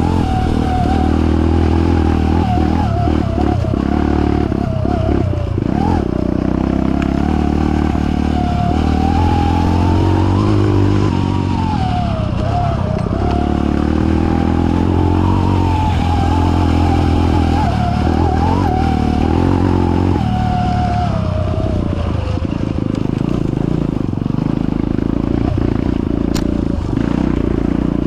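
Dirt bike engine running continuously at changing revs, with a whine that rises and falls with the throttle.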